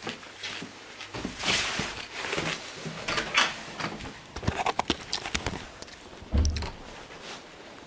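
Handling noise from a phone being moved against clothing: irregular rustling with scattered clicks and knocks, and a heavier thump about six and a half seconds in.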